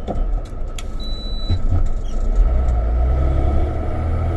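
Hino 500 FM260JD truck's diesel engine heard inside the cab, running steadily with road noise. Its low drone grows stronger about halfway through as it pulls in gear. A short high beep sounds about a second in.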